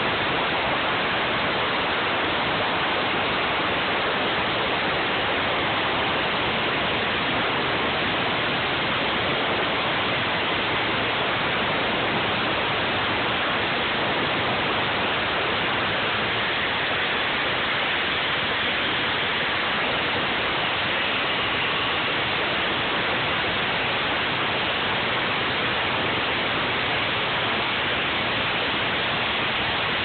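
Husqvarna walk-behind flat saw running at full power, its large diamond blade cutting a concrete slab: a loud, unbroken noise that holds one level throughout.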